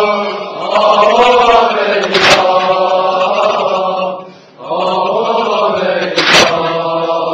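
A male voice singing a slow Persian lament in long, wavering held notes over a steady low drone, with a sharp percussive hit about two seconds in and another about six seconds in.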